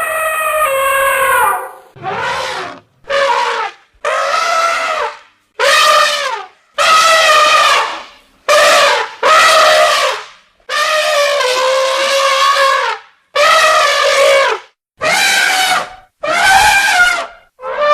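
Elephant trumpeting: a run of about a dozen separate calls, each half a second to two seconds long with short gaps between them, many dipping in pitch as they end.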